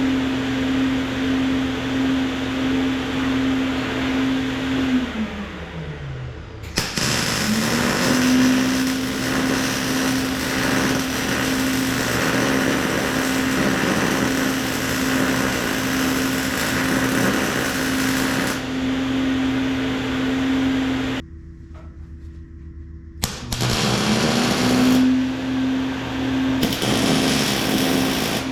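Welding in long runs with a fume extractor's fan motor humming alongside it. The extractor's hum winds down as the arc stops about five seconds in, winds back up as welding resumes, and cuts out for about two seconds before starting again near the end.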